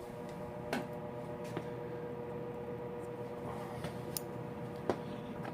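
A few light metallic clicks and knocks, about five spread over several seconds, over a steady hum: a distributor being worked down into the engine block, its shaft seeking the slot in the oil pump drive.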